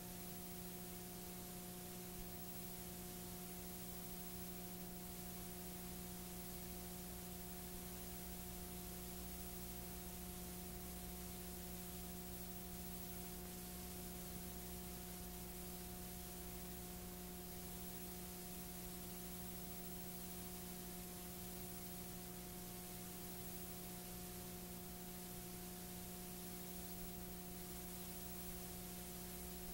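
Faint, steady electrical hum with a low main tone and fainter higher tones over a constant hiss, as on a blank stretch of analogue videotape.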